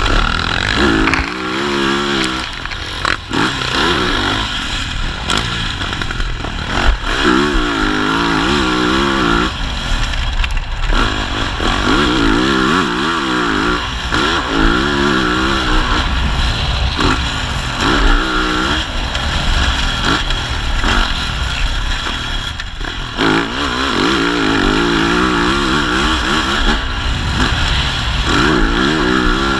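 Yamaha 450 four-stroke motocross bike engine revving hard and backing off again and again, its pitch climbing and dropping through the gears. Wind rushes over the microphone throughout.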